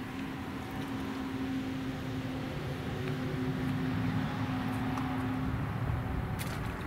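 An engine running steadily, its hum drifting in pitch, with a couple of light clicks near the end.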